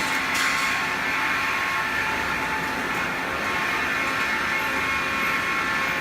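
Cosen semi-automatic miter bandsaw and its material-handling system running: a steady mechanical noise with a thin, many-toned whine that holds even throughout.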